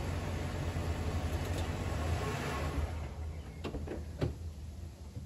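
A Toyota Sienna minivan's engine runs with a steady low hum, then shuts off about three seconds in. A few light clicks follow from the van.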